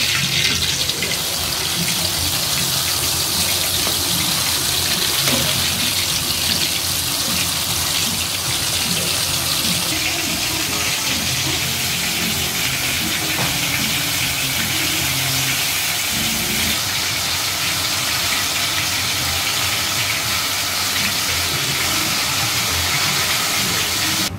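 Batter-coated Nendran banana pieces deep-frying in a wok of hot oil: a steady, loud sizzle of the oil bubbling around them.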